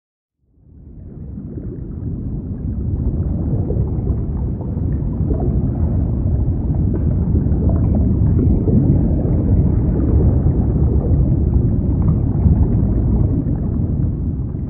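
Deep rumbling sound effect that fades in about half a second in and swells steadily louder, with faint crackles over the low rumble.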